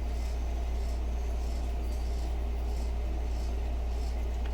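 Steady low hum with a faint even background noise, unchanging throughout.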